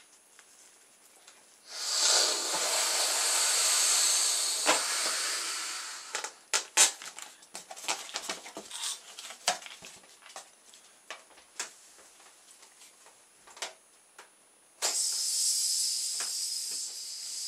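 Small water-bomb balloon deflating through a narrow ball-pen tube: a steady hiss of escaping air that starts near the end and drives a small balloon-powered boat along. Before it comes a rush of air lasting about four seconds, then a scatter of light clicks and knocks.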